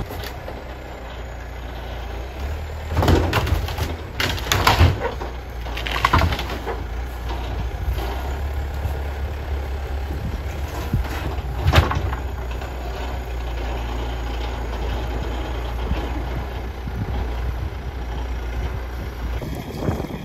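Compact wheel loader's diesel engine running steadily, with a cluster of loud crashes and knocks between about three and six seconds in and one sharp crash near twelve seconds as the bucket pushes and breaks up shack debris.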